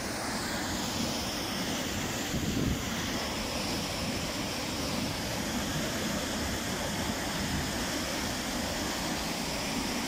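Steady rushing of a small mountain-river waterfall, white water cascading over rock ledges into a pool.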